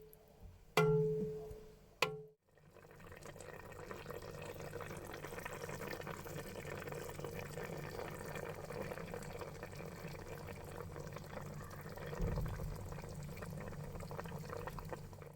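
Food cooking in a pan: a few sharp knocks with a short ring in the first two seconds, then a steady hiss of liquid cooking that carries on to the end.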